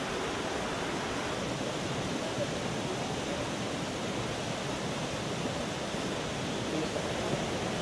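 Jungle stream flowing over rocks: a steady, even wash of running water.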